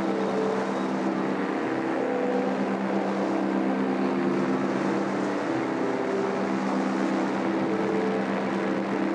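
Ultralight aircraft engine and propeller running steadily in flight: a constant hum with several tones that shift slightly in pitch.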